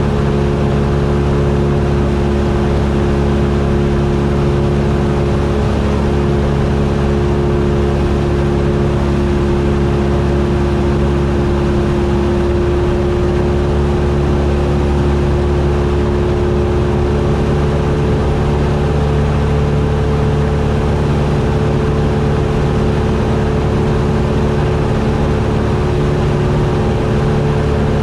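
Cessna 172's piston engine and propeller running steadily in flight, a constant-pitch drone with a rush of air underneath.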